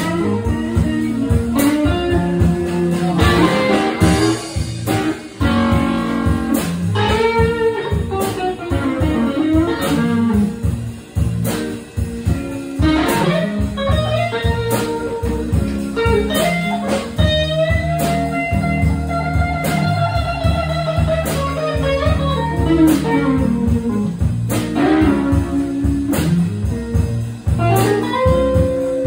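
Live band music led by a guitar soloing over a bass line and steady beat. The lead guitar bends its notes up and down and holds one long bent note for several seconds midway through.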